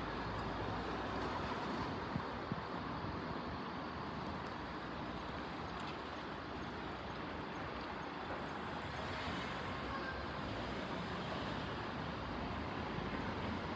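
Steady road traffic noise: an even hum of passing vehicles with no distinct events.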